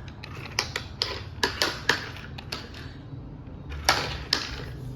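Irregular clicks and light knocks of a hard plastic toy being handled, with two louder knocks near the end.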